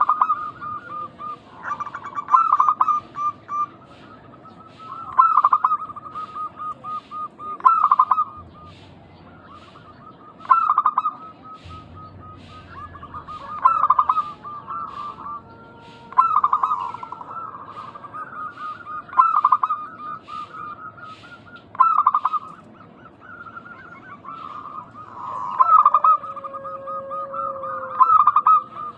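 Zebra doves (perkutut) cooing: a staccato, trilling coo phrase repeats every two to three seconds, and a second bird's lower call overlaps it at times.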